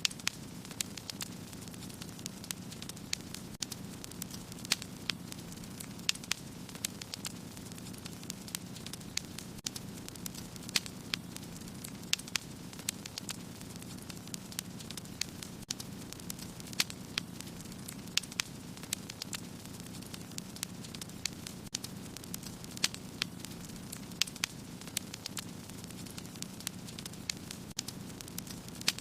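Fire burning in a fireplace: irregular sharp crackles and pops, several a second, over a steady low rumble of the flames.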